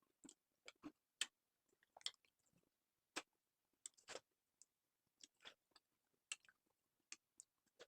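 Faint, irregular chewing: soft mouth clicks and small crunches from a person eating snacks, coming every half second or so.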